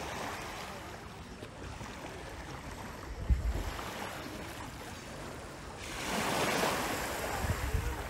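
Small waves lapping at the shoreline of a calm sea, with a louder wash of water about six seconds in and low wind rumble on the microphone.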